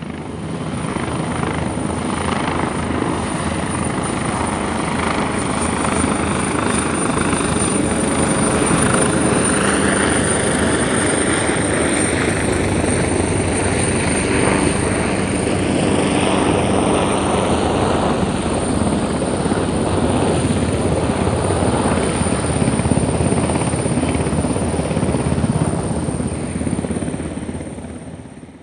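Military helicopter flying over, its rotor and engine noise with a steady high whine, rising in over the first couple of seconds, staying loud, then fading out near the end.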